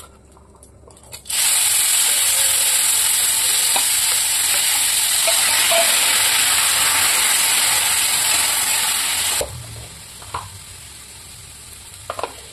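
Boiled chickpeas hitting hot oil and cumin in a kadhai: a loud sizzle starts about a second in, runs for about eight seconds, then drops sharply to a softer fry. A few short scrapes of a steel spatula on the pan come near the end.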